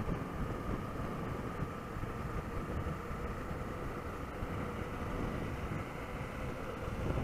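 Honda XRE 300's single-cylinder engine running steadily under a low rumble, with a faint steady whine.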